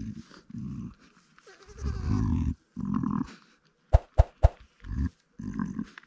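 Ewe's low, throaty rumbling calls to her newborn lambs, the soft maternal sound a ewe makes while bonding with lambs just after birth, in about six short bursts. A few sharp clicks come about four seconds in.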